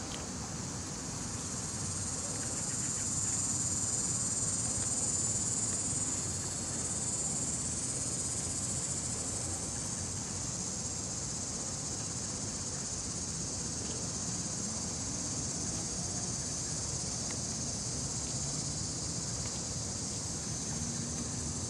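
A steady, high-pitched chorus of insects chirring, swelling a little between about three and six seconds in.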